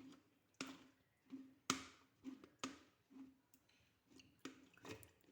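Straining sugared lemon peels to drain off their syrup: short, soft clicks and wet taps, about two a second, as the peels are worked in the strainer.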